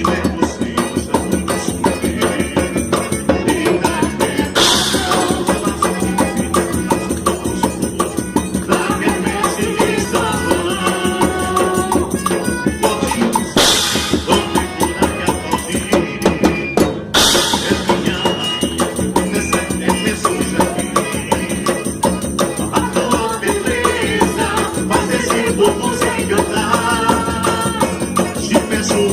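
Festa junina dance music with singing over a steady beat of rattling, tambourine-like percussion.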